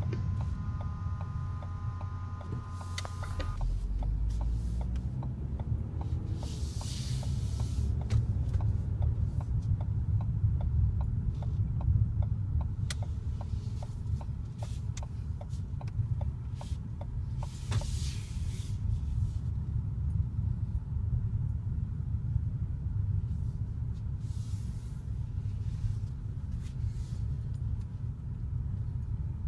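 Car interior road noise while driving: a steady low rumble of engine and tyres, with a run of regular ticks through the middle stretch and a few brief swells of hiss.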